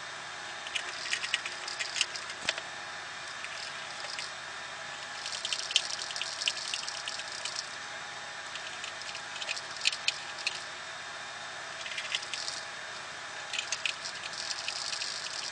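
Screws being driven by hand with a screwdriver to fasten an optical drive into a computer case's drive bay: several short runs of small clicking and scraping, over a steady hiss.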